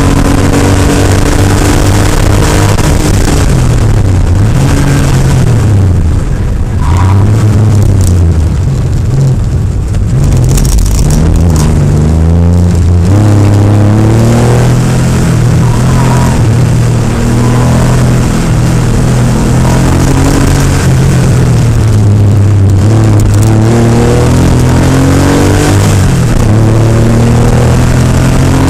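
Classic Porsche 911 rally car's air-cooled flat-six heard from inside the cockpit, the engine note climbing and falling again and again as the car accelerates and lifts off through the stage.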